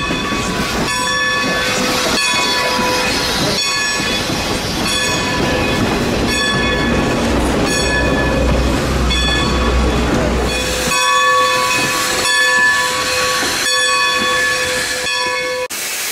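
Steam locomotive bell ringing steadily, struck a little more often than once a second, over the low rumble of a passenger train rolling past; the rumble drops away about two-thirds of the way through and the sound cuts off suddenly near the end.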